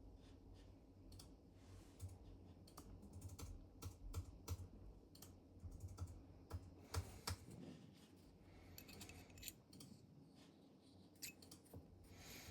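Faint, irregular light clicks and taps of small metal parts being handled, with the loudest cluster in the middle.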